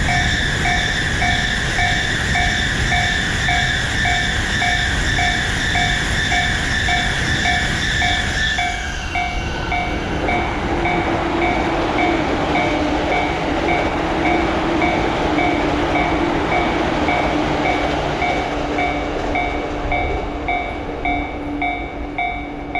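Japanese level-crossing alarm ringing its repeating "kan-kan" tone steadily over the noise of electric trains running past. The train noise changes about nine seconds in, when a low steady hum sets in.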